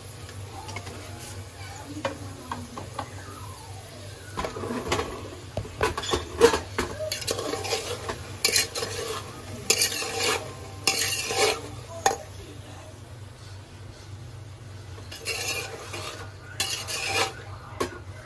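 A steel slotted spoon stirring and scraping boiled chickpeas and dry spices around the inside of a metal pressure cooker pot: irregular scraping and clinking strokes. The strokes run in one longer spell through the middle and a shorter one near the end.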